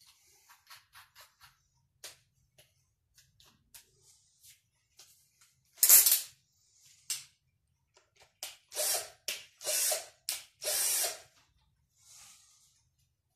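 Tools and parts being handled close up: a run of small clicks and knocks, a louder clatter about six seconds in, then four short rasping scrapes.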